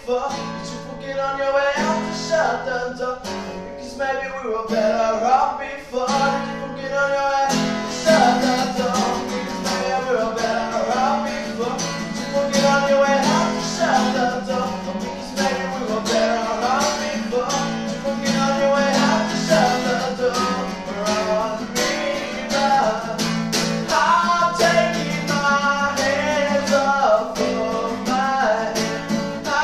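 Background music: a guitar-driven song with no vocal line, growing fuller about eight seconds in.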